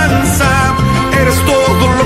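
Instrumental passage of a Latin pop song with a steady beat, between sung verses.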